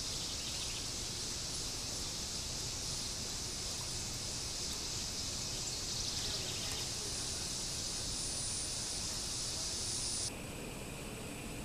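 Steady high-pitched drone of insects in summer daylight, an even buzzing hiss that cuts off abruptly near the end.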